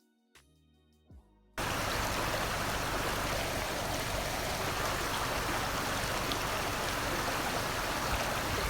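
Steady rush of flowing water, cutting in suddenly about a second and a half in after near silence.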